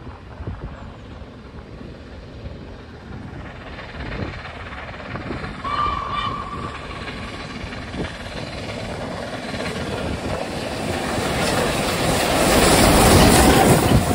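LNER A3 Pacific steam locomotive 60103 Flying Scotsman approaching and passing at speed, its noise growing steadily louder to a peak as it goes by near the end. A short whistle sounds about six seconds in.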